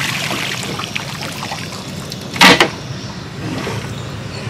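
Cast net being hauled up out of the river by hand, water dripping and pouring off the mesh, with one loud, short rush of noise about halfway through.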